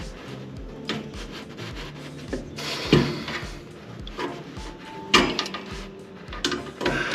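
Irregular metal clinks, knocks and scrapes of hand tools working the set screw on a furnace blower wheel, over background music with a steady beat.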